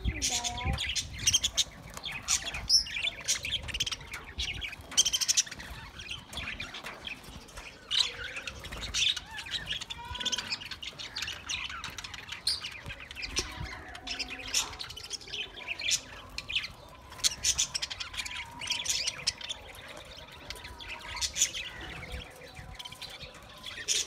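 A flock of budgerigars chirping over one another in a steady stream of short, high calls.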